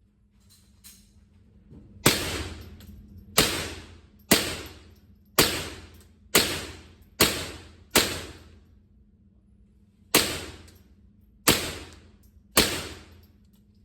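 Ten gunshots from a firearm fired at a range target, in an uneven string, each ringing out with an echoing tail. There is a pause of about two seconds after the seventh shot. A couple of faint clicks come just before the first shot.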